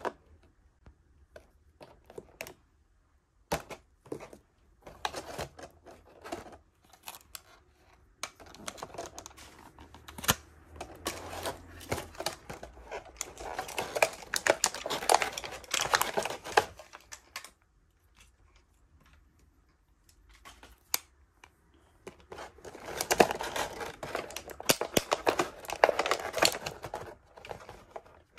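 Thin clear plastic blister packaging crinkling and crackling, with sharp clicks, as small plastic toy pieces are pried out of it by hand. The crackling comes in irregular bursts with quieter pauses between.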